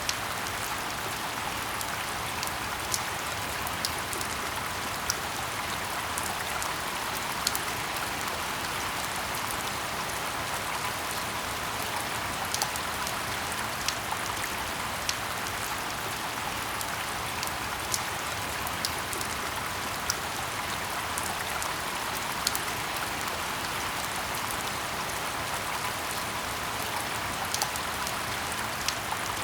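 Steady rain falling in a forest: an even hiss with sharper single drop impacts scattered through it, one every second or two.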